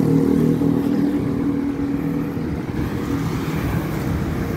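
A motor vehicle engine humming steadily close by in street traffic, a little fainter after about three seconds.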